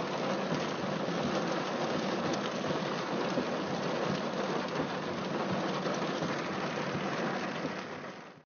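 Steady rain falling, an even dense patter, fading away near the end and then cutting off.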